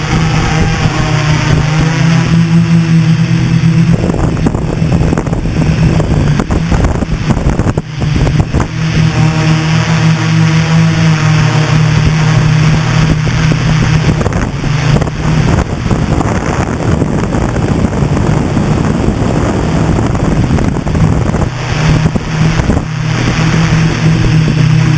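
Hexacopter's brushless motors and propellers buzzing loudly, heard from the camera mounted on the aircraft, with the pitch wavering as the throttle changes during lift-off and climb. Wind rushes over the microphone.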